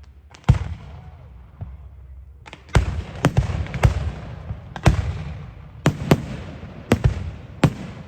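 Fireworks going off in a display: about ten sharp bangs, bunched in a quick run around three to four seconds in and again near six seconds. Each bang is followed by a low rumbling echo.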